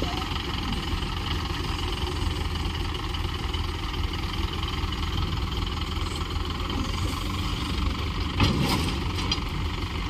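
Diesel engines of a farm tractor and a backhoe loader running steadily together under load as the backhoe pushes the tractor's loaded trolley. A brief metallic clatter about eight and a half seconds in.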